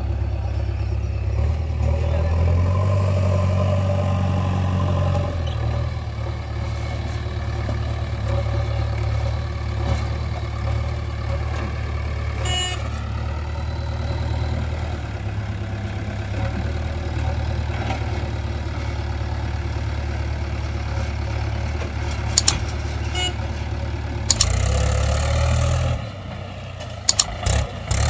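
Diesel engines of a JCB 3DX backhoe loader and a Mahindra 575 farm tractor running steadily, the engine speeding up for a few seconds near the start as the loader works its bucket. A few sharp metal clanks come later on.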